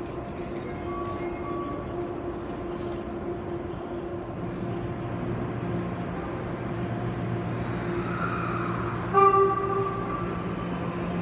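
Tokyo Metro 9000 series train standing at the platform with a steady low hum. About nine seconds in it gives one short, loud horn toot just before pulling away.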